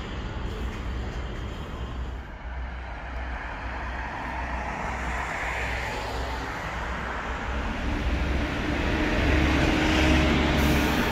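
Steady low rumble of a moving vehicle's engine and road noise, heard from inside a city bus. From about eight seconds in it gets louder and a steady engine hum comes up.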